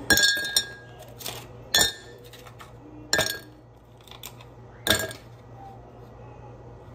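Ice cubes dropped into a drinking glass: a handful of sharp glass clinks, each with a short ring, spread over the first five seconds.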